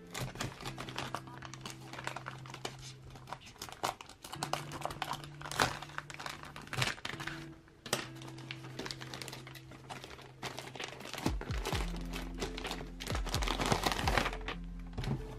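Black plastic parcel wrap crinkling and tearing as it is slit with a box cutter and pulled off a cardboard box, in many quick crackles. Soft background music runs under it, and low handling rumbles come in near the end.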